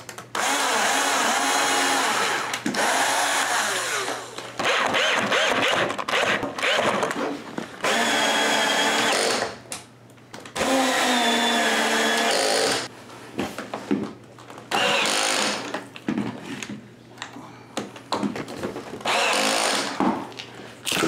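Cordless drill with a 3/32-inch bit pre-drilling a pilot hole for a mounting bracket, run in a series of short bursts of a few seconds each with brief pauses between.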